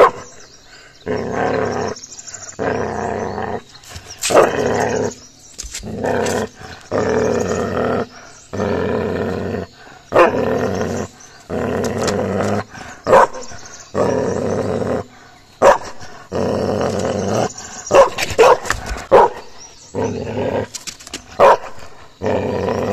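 Tibetan mastiff puppy growling in repeated rumbles about a second long, with short pauses between, while guarding its bone. Near the end a few short, sharp outbursts come thicker and louder.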